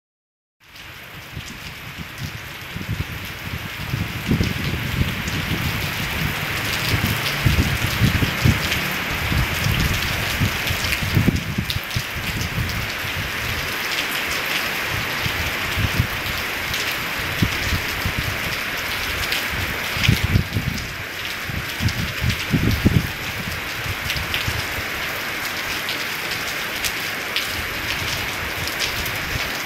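Steady rain falling on wet paving, lawns and plants, a continuous hiss, with irregular low rumbles coming and going.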